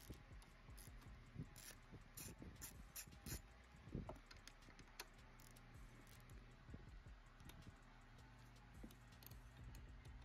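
Faint scattered clicks and rubbing as gloved hands work the rubber intake hose off a small generator engine's carburetor, with one slightly louder knock about four seconds in.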